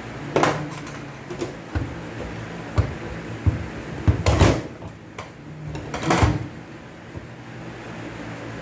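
Irregular metallic knocks and clunks as a gear is worked at inside a stripped-down 4WD drivetrain gear unit, the loudest about four and six seconds in. The gear is jammed and will not come out.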